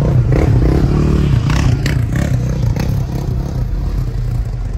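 A vehicle engine running loudly, revved up and back down about a second in.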